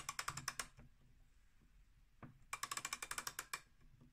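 Winding key of a 19th-century French singing bird automaton being turned, the spring's ratchet clicking rapidly in two runs, the second starting about two and a half seconds in.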